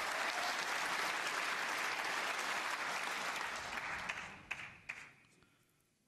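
Audience applauding a player's break at the table, dying away about four seconds in with a couple of last single claps.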